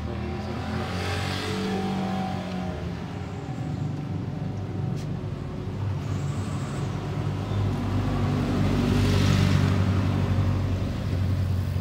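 Yamaha Mio i scooter engine running on the stand with its CVT belt drive uncovered, a steady low hum throughout. A hissing swell rises about a second in and another, louder one near the end: the CVT hissing sound the scooter is being repaired for.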